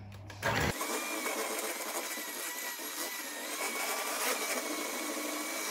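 Electric hand mixer switching on about half a second in and running steadily with a thin whine, its beaters mixing banana bread batter in a bowl.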